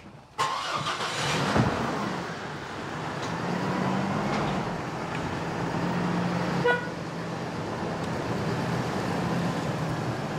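Car running on the road, heard from inside the cabin: a steady engine hum and road noise that start suddenly just after the opening, with a short horn toot about seven seconds in.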